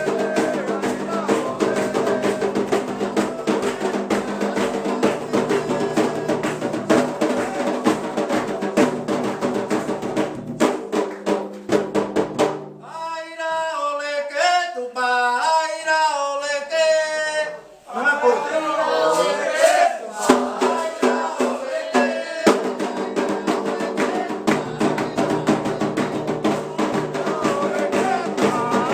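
Ritual drumming with sung chant: steady, dense drum strokes under voices singing together. About halfway through, the drumming mostly drops out and a single voice carries a bending melodic line for about five seconds, then the drums and singing come back in.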